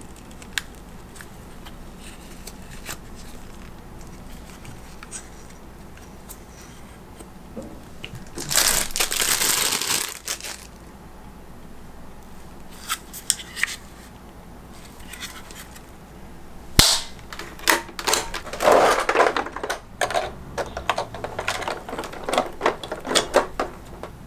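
Gloved hands handling hard plastic action-figure parts and their packaging: scattered light clicks and taps, a louder stretch of rustling about eight seconds in lasting about two seconds, a sharp click a little before seventeen seconds, then a busy run of clicks and rustling until near the end.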